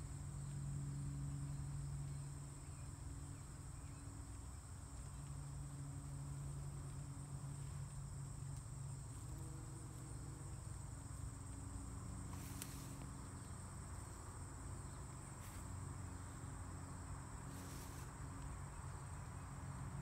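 Bumblebee buzzing low from its fast-beating wings, the buzz coming and going as it moves among the flowers, over a steady high-pitched insect chorus.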